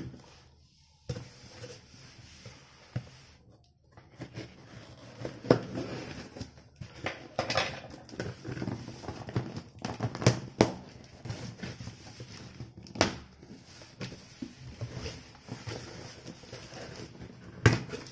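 Cardboard shipping box being cut open and unpacked by hand: a knife slitting the packing tape, then the flaps and inner box rustling, scraping and knocking in scattered sharp clicks.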